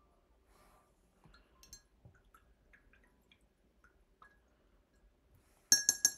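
Faint scattered ticks of a watercolor brush working wet paint. Near the end comes a quick run of three or four sharp, ringing clinks as the brush is knocked against a hard dish.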